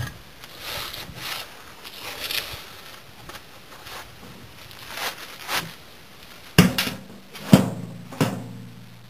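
Refractory brick slabs knocked together and set down on gravel: a handful of scuffs and sharp knocks, the loudest two about six and a half and seven and a half seconds in.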